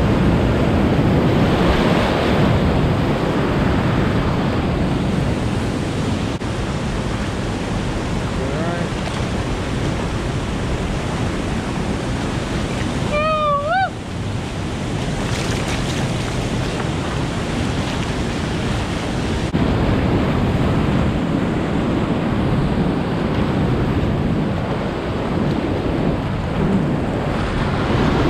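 Whitewater creek rapids rushing loudly and steadily around a kayak running the drops, with wind buffeting the microphone. About halfway through, a brief high-pitched call rises at its end.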